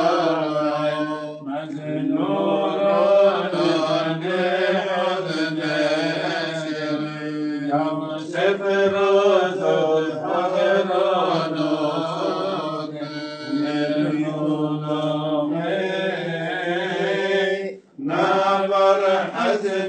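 A man's voice chanting a Syriac Orthodox liturgical chant, slow and ornamented with long held notes. There is a short breath break near the end.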